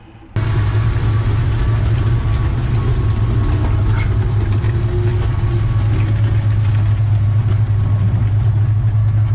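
M2 Bradley Fighting Vehicle's diesel engine running steadily, a loud low drone that cuts in abruptly just after the start.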